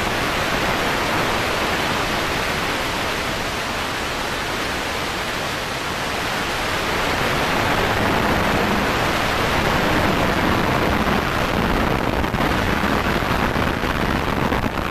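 Volkswagen Beetle bilcross car at racing speed, heard from inside its stripped cabin: a dense, rushing noise of engine, tyres and road without any clear engine pitch, getting louder about eight seconds in.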